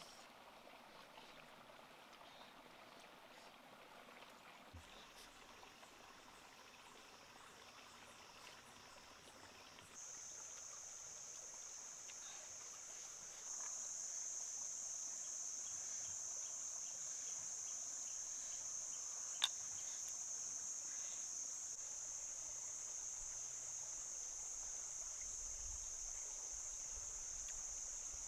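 Insects droning in one steady high-pitched band, coming in about a third of the way through and growing louder a few seconds later. A single sharp click comes near the middle.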